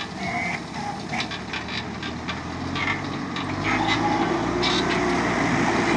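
Ashok Leyland backhoe loader's diesel engine running under work, with scattered clanks and knocks from the machine; about three and a half seconds in, the engine gets louder as it takes more load.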